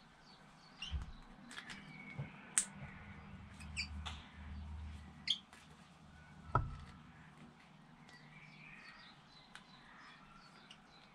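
Faint small metallic clicks and taps from hose clamps and pliers being handled while fitting a silicone coolant hose, with one louder knock about two-thirds of the way through. Birds chirp now and then in the background.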